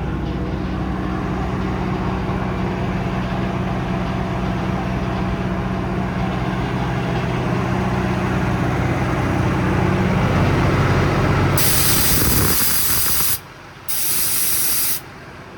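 Truck's Cummins 8.3 diesel running with its hydraulic air compressor engaged, a loud, steady hum. Near the end, compressed air hisses out twice, the first for nearly two seconds and the second for about a second, and the low hum drops away.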